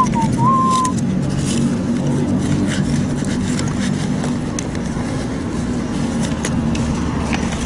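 Steady background hum of arcade prize machines, with a few faint clicks. A whistled tune ends about a second in.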